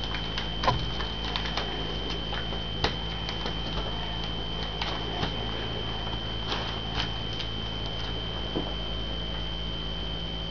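Sheet of origami paper being folded and creased by hand: irregular small clicks and crackles of the paper, two louder ones about one and three seconds in, over a steady high whine and low electrical hum.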